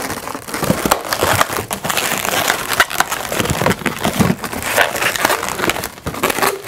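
Latex twisting balloons, a clear 260 around blue bubbles, rubbing against each other and against the hands as the clear balloon is tied off: a continuous, irregular rubbing with many short sharp clicks.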